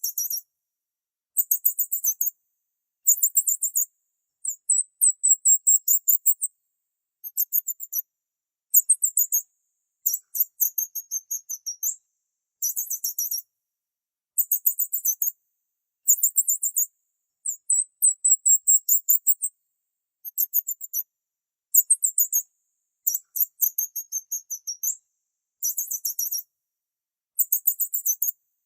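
A small bird chirping in short bursts of rapid, very high-pitched notes, about one burst every second or so, with clean silences between.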